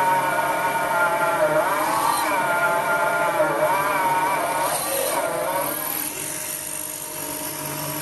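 Small electric motor of a belt-driven drilling head whining as a 4.3 mm drill bit cuts a hole through a small steel collar. The whine dips in pitch several times as the bit bites, then fades and quietens about six seconds in.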